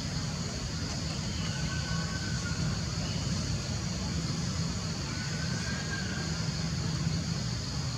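Steady tropical forest ambience: a constant high-pitched insect drone over a low rumble, with two faint thin whistled calls, one about two seconds in and one near six seconds.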